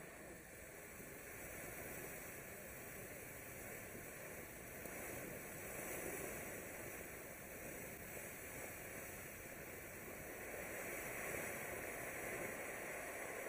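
Silent Mode noiseless ground fountain firework spraying sparks with a steady hiss, with no bangs or crackles. The hiss grows louder around the middle and again near the end as the fountain burns higher.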